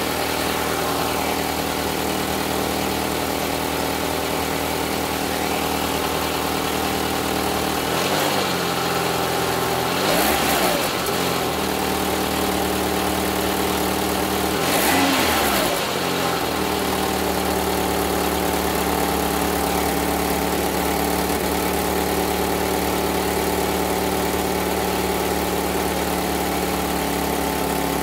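Renault Clio 3 1.2-litre 75 hp petrol engine idling, heard from beside the car, with its intermediate exhaust blown open along the original weld. It is revved briefly a few times near the middle and settles back to a steady idle.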